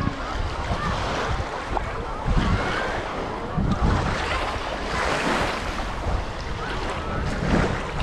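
Waves washing onto a beach, with wind gusting on the microphone.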